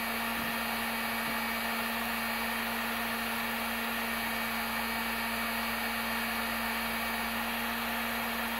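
Electric heat gun running steadily: an even blowing rush with a constant low hum.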